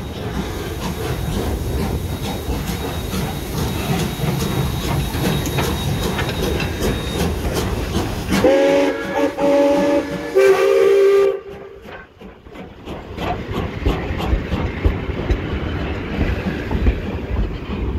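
Double-headed steam locomotives, SteamRanger's Rx class 224 and 620 class 621, pulling away with exhaust beats and hiss. About eight and a half seconds in, a steam whistle sounds twice, a longer blast then a shorter one. After that, the passenger carriages roll past with wheels clicking over the rail joints.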